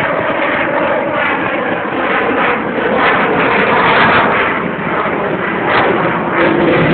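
Jet noise from an F-22 Raptor's twin turbofan engines as the fighter flies its display. It is a loud, continuous rushing sound that swells and eases slightly.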